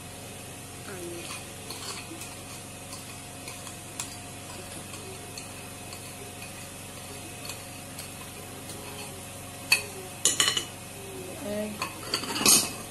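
Wire whisk stirring thick cake batter in a glass bowl, with light ticks of the wires against the glass. Near the end come several louder clinks and scrapes of metal utensils, the loudest about a second before the end.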